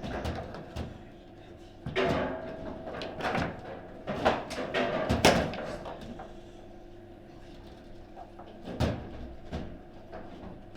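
Table football in play: the ball cracking against the figures and the table walls, with sharp knocks from the rods, several in quick succession about four to five seconds in and again near nine seconds.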